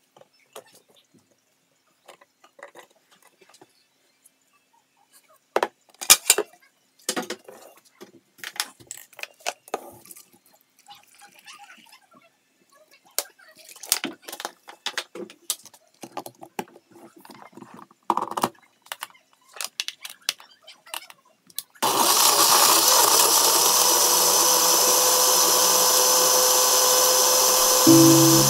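Scattered clicks and knocks of chunks of beetroot and banana going into a glass blender jug. About 22 seconds in, a countertop blender switches on suddenly and runs steadily, puréeing them.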